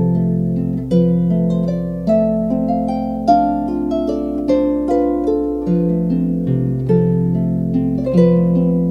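Solo harp music: plucked notes and chords, a new one about once a second, each left to ring and fade into the next.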